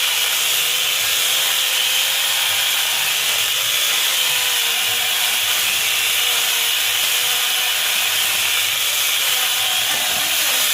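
Corded electric mini chainsaw running and cutting through wood, with a steady high whine and a motor pitch that wavers slightly under load.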